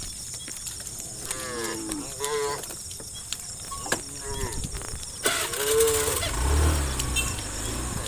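Cattle mooing: several short moos from the herd, a few seconds apart.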